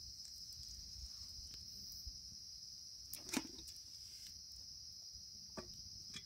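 A steady, high-pitched chorus of crickets chirring in the forest, with a few faint clicks, the loudest about halfway through.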